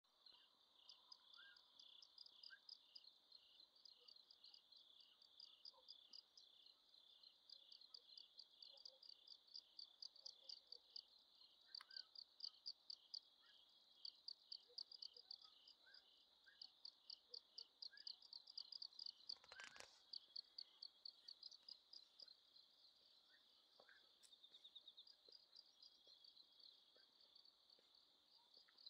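Faint chorus of night insects, crickets, chirping in rapid, even pulses, with one sharp click about twenty seconds in.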